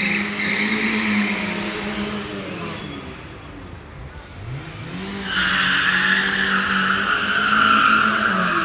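Small hatchback car drifting in circles: engine held at high revs while the tyres squeal. The squeal fades about three seconds in, the engine dips and revs up again, then the tyres squeal louder and longer.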